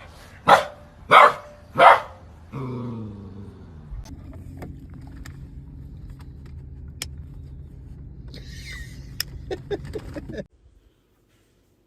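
A dog barking three short times, followed by a steady low hum with scattered clicks that cuts off suddenly near the end.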